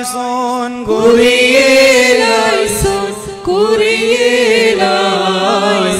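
Men's voices singing a slow Malayalam hymn to the Virgin Mary in Orthodox liturgical chant, drawing out long held, wavering notes. There are short breaks between phrases about a second in and around three and a half seconds.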